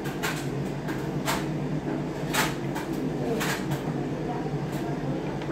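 Light knocks and clicks from paint jars and a brush being handled on a tabletop, about one a second, over a steady low hum.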